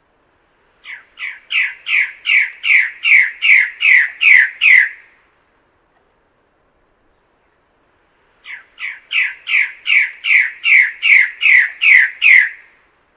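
Bird-of-paradise calling: two series of loud, repeated squawking notes, about eleven in each. The notes come a little over two a second, each one dropping in pitch, and each series builds in loudness before stopping.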